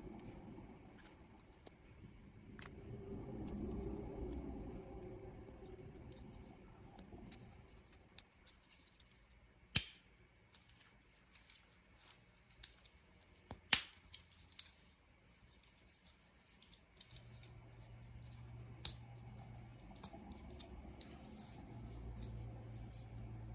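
Plastic model kit parts and hobby tools being handled: scattered small clicks and snips, with two sharper clicks about ten and fourteen seconds in.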